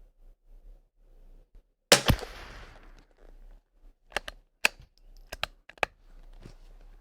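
.22 LR rifle shot from a Kimber rimfire rifle about two seconds in: a single sharp crack with a short echo that dies away within a second. About two seconds later come five quick sharp clicks.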